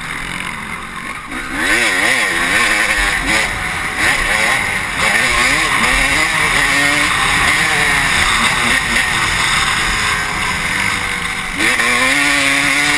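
Honda CR250 two-stroke motocross bike engine revving up and down as the rider accelerates and shifts, heard from the rider's helmet camera. The engine gets louder and climbs in pitch about a second and a half in, and climbs again near the end.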